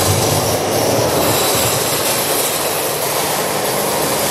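Harsh electronic noise from an audio-visual installation's stereo soundtrack: a loud, dense, steady wash of noise across low and high pitches, with no clear tones or beat.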